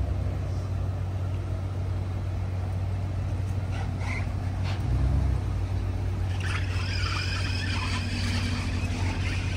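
Street traffic: a steady low rumble of car engines. A brief swell comes about five seconds in, and higher sounds join over the last few seconds.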